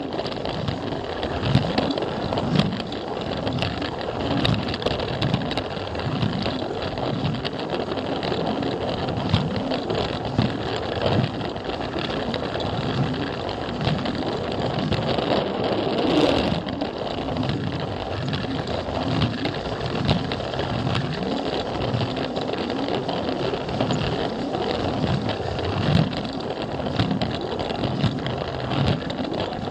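Plarail toy train's small battery motor and gearbox whirring steadily, with frequent clicks and rattles from the plastic wheels running over the blue plastic track, heard close up from a camera car riding on the train.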